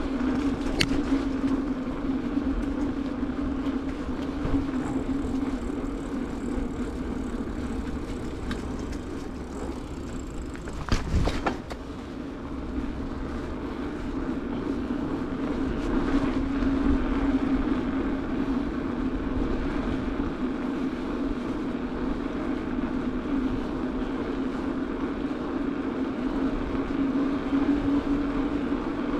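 Bicycle riding on asphalt: the tyres roll with a steady low hum and wind rumbles on the microphone. A single sharp knock sounds about eleven seconds in.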